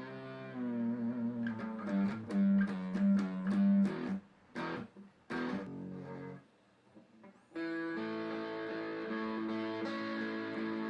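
Guitar played solo. Picked notes with bent, wavering pitches give way to a few sparse plucks and a short quiet gap, then a chord is struck about three quarters of the way in and rings on steadily.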